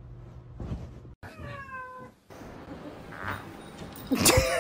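Domestic cat meowing: one drawn-out meow about a second in, falling slightly in pitch. A louder, shorter call comes near the end.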